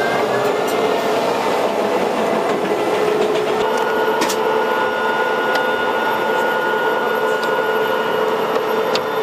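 Main battle tank running: a loud, steady mechanical noise with a steady whine through it and a few sharp clicks.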